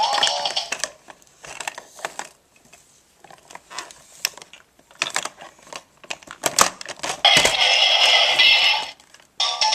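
Plastic clicks and rattles from a Fisher-Price Peek-a-Blocks toy truck being handled and rolled across a wooden floor, its loose plastic blocks clattering. A tune stops under a second in, and a denser, continuous clatter runs for about two seconds near the end.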